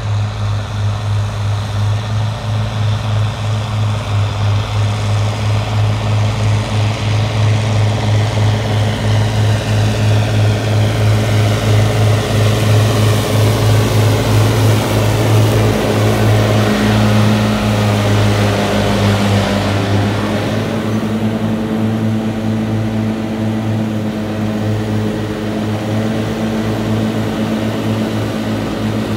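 Massey Ferguson 6180 tractor's six-cylinder diesel running through a straight-pipe exhaust under mowing load, with a deep pulsing drone. It grows louder as the tractor approaches, is loudest about halfway through as it passes close by, then eases off a little.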